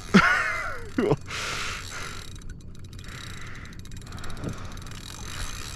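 Spinning reel's drag clicking in a rapid ratchet as a hooked tarpon pulls line off, with a brief vocal sound right at the start.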